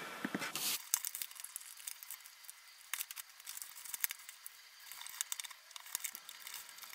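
Lined notebook paper crinkling and rustling in quick, dense crackles as it is folded, played back fast-forward.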